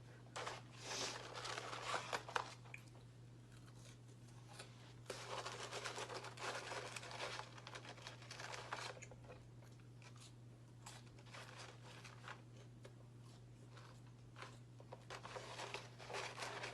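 Close-up eating sounds of a McDonald's cheeseburger and fries being eaten, coming in several spells of a few seconds each, over a steady low hum.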